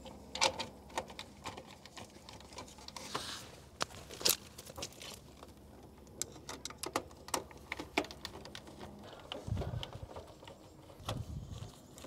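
Irregular plastic clicks and taps, with wires rustling, as the body of an Emerson SureSwitch electronic contactor is fitted onto its base and handled among the wiring. A couple of duller knocks come near the end.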